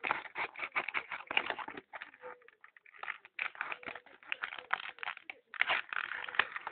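Clear plastic packaging crackling and clicking as it is pried open with a thin tool: a dense run of small sharp clicks, broken by brief pauses about two and a half and five and a half seconds in.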